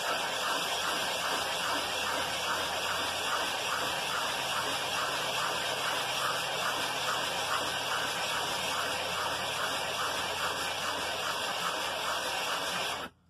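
Briggs & Stratton 5 HP flathead cylinder head rubbed back and forth on sticky-backed sandpaper over a flat surface: a steady, gritty rasp as its gasket face is lapped flat. It stops abruptly near the end.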